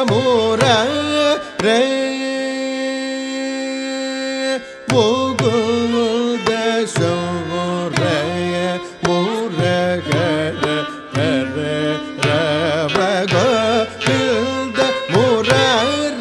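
Carnatic classical pallavi performance: a singer's voice with gliding, ornamented notes and a long held note about two seconds in, accompanied by violin and mridangam strokes.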